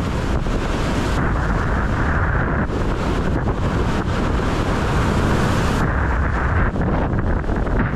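Heavy wind buffeting on an action camera's microphone, mixed with the rush of water under a windsurf board sailing at speed. A higher hiss from spray comes and goes every second or two.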